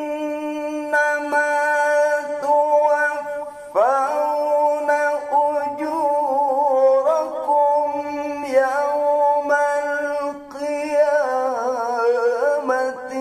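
A man reciting the Quran in melodic tilawah style into a handheld microphone, in maqam Nahawand, holding long notes on one breath with wavering ornaments. A new phrase begins about four seconds in with a rising slide into a high held note.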